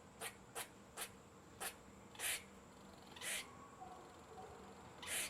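An animal making short, breathy puffs of air, seven at uneven intervals; the longer ones last about a third of a second.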